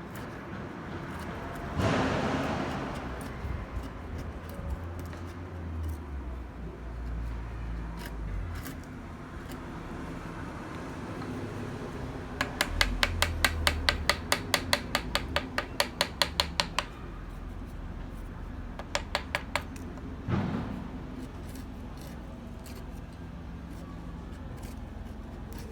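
Hand woodworking in a workshop. There is a wooden knock about two seconds in, then an even run of sharp clicks at about ten a second lasting some four seconds. A shorter run of clicks and a second knock follow, over a low steady hum.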